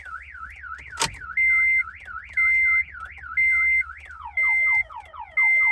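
Car alarm siren going off, warbling up and down about four times a second and switching to quick falling chirps about four seconds in, with a steady high beep about once a second over it and a sharp click about a second in. The alarm is thought to be interfering with the immobilizer key programming.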